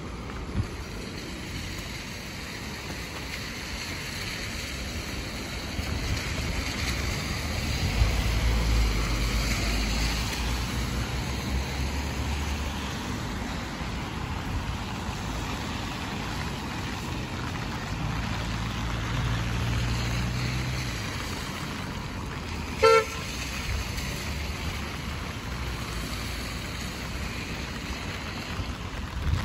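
Traffic on a rain-wet road: a steady hiss of rain and tyres, with the low rumble of vehicles passing twice. A brief car-horn toot sounds about three-quarters of the way through.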